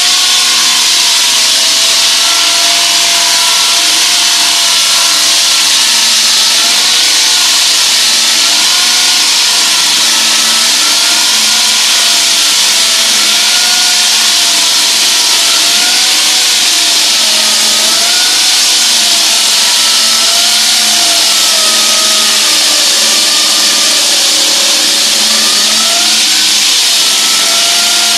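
Hydraulic wall saw's diamond blade cutting reinforced concrete: a loud, steady grinding hiss with a whine that wavers up and down in pitch.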